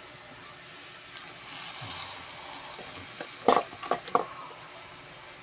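Vegetables cooking in a saucepan with a steady sizzle. About halfway through comes a quick run of three or four sharp clatters at the pot as leafy greens are put in.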